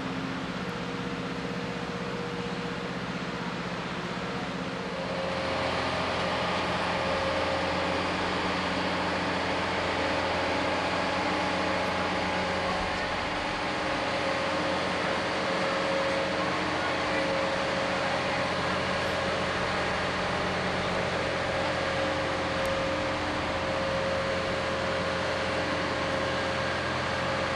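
Engine of the heavy multi-wheeled transporter carrying a space shuttle orbiter, running with a steady drone and a steady whine over it; it gets louder about five seconds in.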